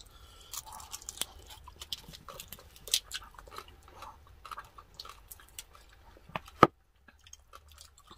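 Close-up chewing and biting into crispy deep-fried pork knuckle (lechon pata): a run of short crackling crunches and clicks, with one sharp, loud crack about two-thirds of the way in.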